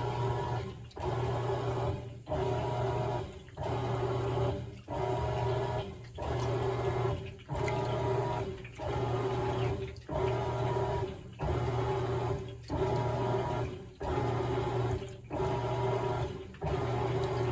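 Crosley top-load washing machine agitating with the lid open: the motor hums and the agitator swishes the water and clothes in even strokes about every 1.3 seconds, with a brief pause between each stroke as it reverses.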